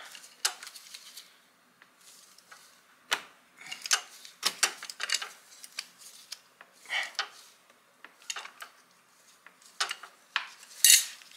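Scattered metallic clinks and scrapes of a hand tool working at a stuck spin-on oil filter on a motorcycle engine, irregular and separated by short pauses, with a few louder clanks.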